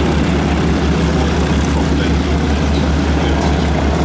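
Steady drone of the 1918 de Havilland DH-9 biplane's single piston engine and propeller in flight.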